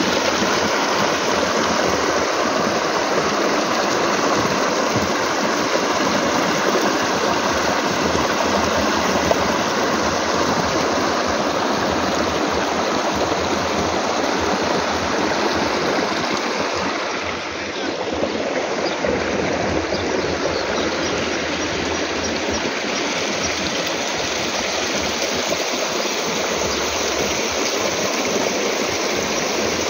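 Muddy water gushing from a pipe into an earthen irrigation ditch and rushing along it: a steady, loud rushing and splashing, dipping briefly a little past halfway.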